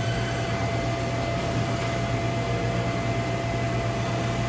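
Wasino LG-7 CNC lathe powered up and running: a steady mechanical hum with a constant whine over it.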